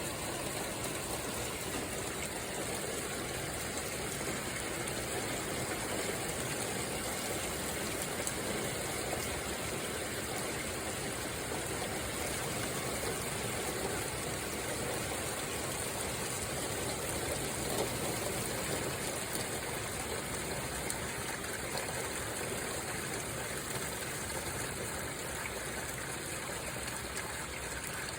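Rain falling steadily, an even hiss without breaks.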